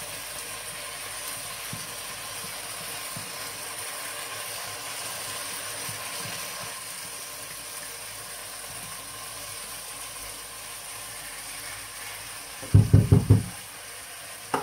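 Dry red lentils pouring and being scraped from a plastic bowl into a pot of vegetables stewing in oil, the grains rattling in over a steady sizzle. A short run of loud knocks comes near the end.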